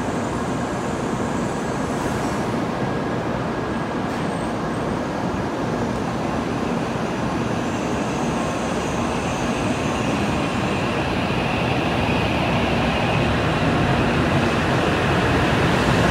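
N700-series shinkansen pulling out of the station, its running noise a steady rumble that grows slowly louder as the train picks up speed past the platform.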